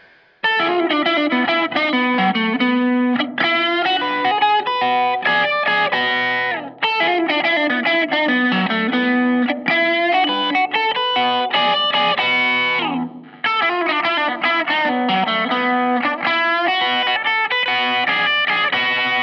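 Electric guitar, a Thinline Telecaster with P90 pickups, played through an amp in fast single-note phrases and chords, with two brief pauses between phrases.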